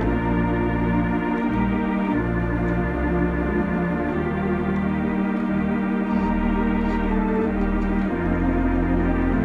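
Compton cinema organ playing a carol: full held chords over deep bass notes, the harmony changing every second or two at a steady level.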